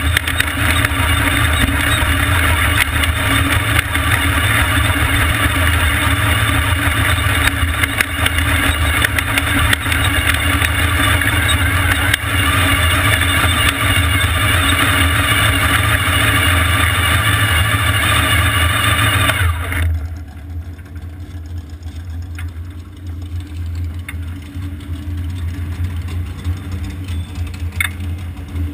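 Vintage supermodified race car's engine running at low speed through the pits, heard up close from the cockpit, then cutting off about two-thirds of the way through, leaving a fainter low rumble.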